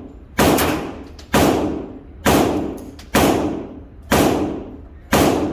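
Gunshots in steady succession at a shooting range, six in all, about one a second, each with a long echoing tail.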